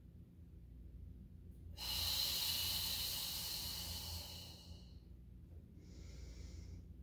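A woman breathing hard through her mouth in time with a Pilates exercise. About two seconds in there is a long, hissing exhale of about three seconds as the legs draw back. A softer, short inhale follows near the end.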